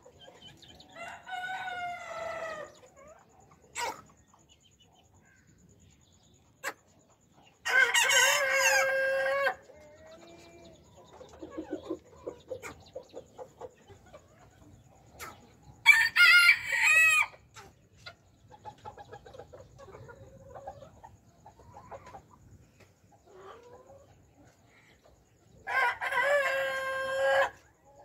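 Roosters crowing four times, each crow lasting one to two seconds, with soft clucking from hens in the gaps between.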